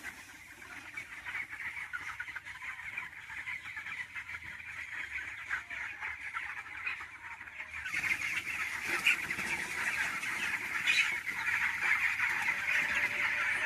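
Large flock of chickens in a poultry shed, many birds calling at once in a dense, continuous chatter that gets louder about eight seconds in.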